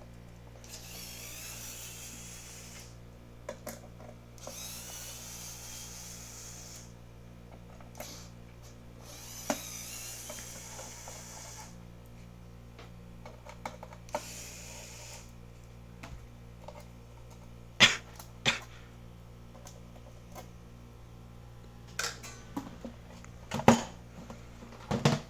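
Small electric screwdriver running in four bursts of two to three seconds, backing out the screws that mount a power supply inside a metal case. Several sharp clicks and knocks follow near the end as the part is handled, over a steady low hum.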